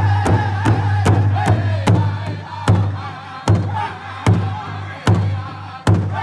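A powwow drum group singing high-pitched in unison while beating a large hide powwow drum. The drum keeps a steady beat of about two to three strokes a second. About two seconds in, it changes to single hard strokes roughly one a second, and the singing grows quieter.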